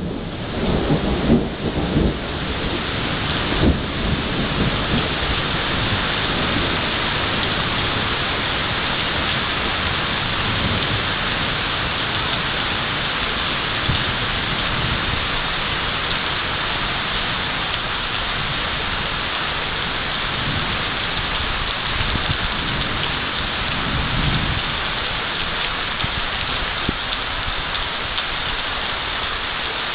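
Heavy rain pouring steadily, with thunder rumbling in the first few seconds and a softer rumble about two-thirds of the way through.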